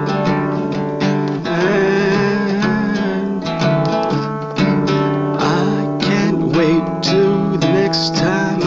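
Acoustic guitar music.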